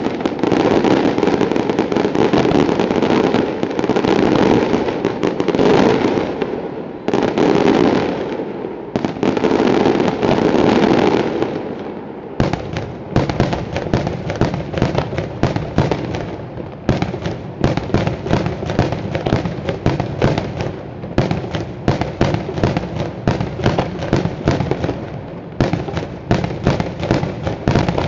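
Daytime display fireworks going off in a dense, unbroken run of bangs and crackle for about the first twelve seconds, then breaking into rapid strings of separate sharp bangs, several a second.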